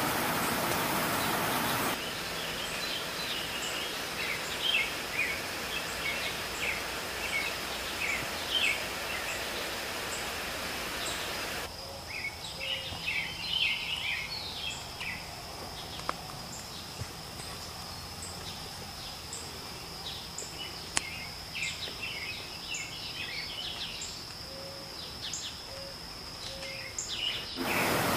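Outdoor nature ambience: small birds chirping in scattered bursts over an insect's steady high-pitched trill, with a faint short high chirp repeating about once a second and a couple of faint clicks.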